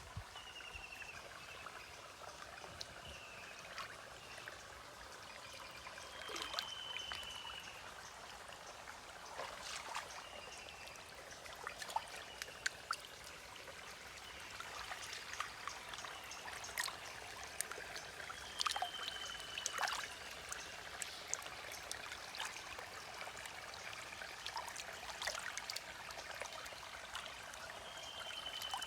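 Water trickling and splashing, with many small clicks and knocks throughout. A short, high, slightly falling whistle sounds three or four times.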